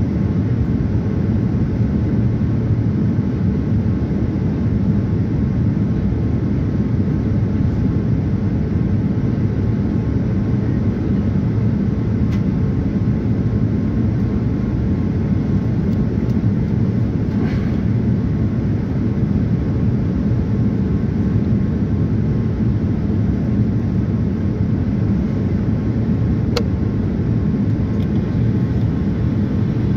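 Steady cabin noise of a Boeing 787-9 in flight, heard from a window seat: an even, unchanging low hum of engines and airflow. A faint click sounds about three-quarters of the way through.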